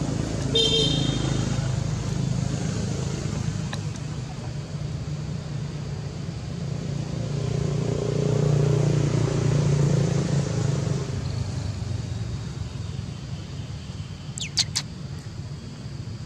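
Steady motor-vehicle engine and road noise, swelling for a few seconds in the middle as a vehicle passes. A short high squeak comes about half a second in, and a sharp high-pitched squeal comes near the end.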